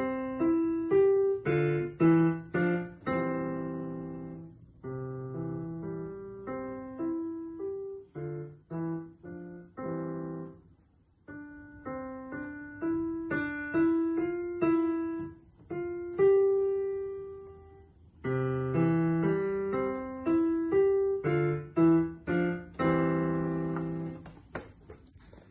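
Digital piano played by a child: a simple beginner's piece in C major, a melody over low left-hand notes, with two short breaks partway through, ending on a chord that dies away.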